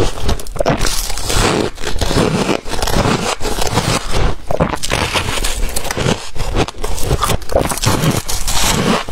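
Close-miked biting and chewing of chunks of freezer frost: a dense, unbroken run of crisp crunches.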